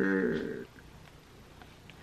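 A voice holding one long, drawn-out vocal sound that trails off about half a second in, followed by quiet room tone.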